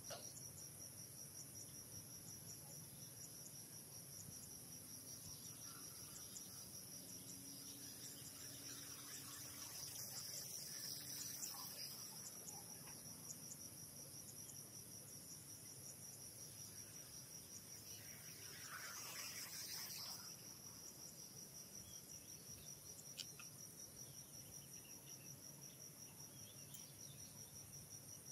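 Insects chirping in a steady, high-pitched, finely pulsed drone, with two brief swells of faint noise about ten and nineteen seconds in.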